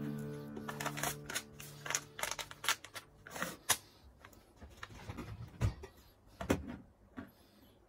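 Irregular clicks, taps and knocks of kitchen handling during food preparation, about a dozen of varying loudness, the loudest near the middle and about two-thirds of the way through. Background music fades out in the first second or so.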